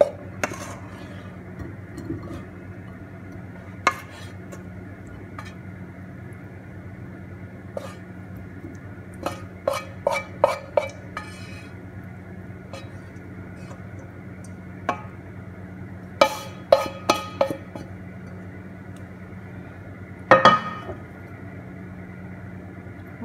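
Spatula scraping and knocking against a frying pan and a ceramic plate while stir-fried chicken and vegetables are tipped out and piled up, giving scattered clinks in short clusters over a steady low hum.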